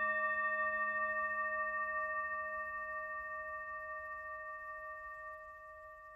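Hand-held Tibetan singing bowl ringing out after a strike with a felt mallet: one sustained note with higher overtones, wavering slightly and fading steadily.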